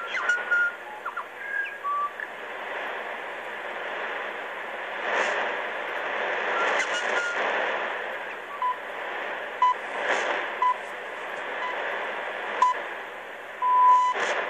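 Radio New Zealand International received on shortwave (13840 kHz AM) on a Sangean ATS-909X: a steady hiss of atmospheric noise with a few static crashes. In the second half come the top-of-the-hour time pips, six one-second beeps with the last one longer.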